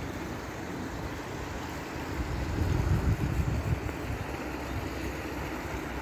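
Small creek running over stones, a steady rush of water, with wind buffeting the microphone in low gusts that swell about halfway through.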